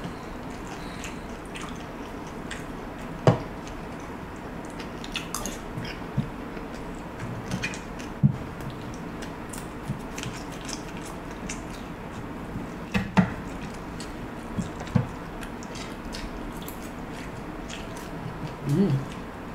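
Fork and spoon clinking and scraping against a plate now and then while a person eats fried fish and rice with mouth sounds of chewing, over a steady background hiss. The sharpest clinks come about three seconds in and about thirteen seconds in.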